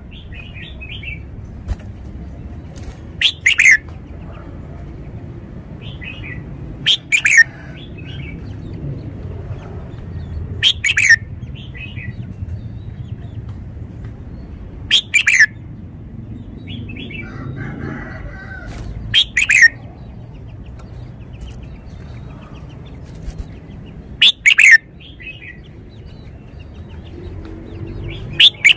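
Red-whiskered bulbul singing short, loud, clear song phrases about every four seconds, with softer notes between them, over a steady low background noise.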